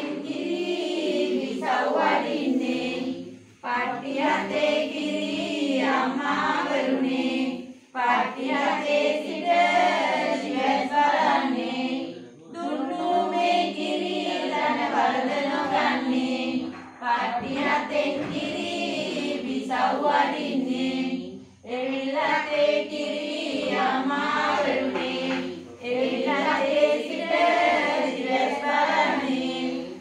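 A group of women chanting a devotional text together in unison, in phrases of about four seconds separated by brief pauses.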